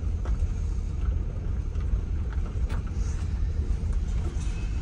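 Car running slowly on the road, heard from inside the cabin as a steady low rumble of engine and tyres, with a few faint ticks.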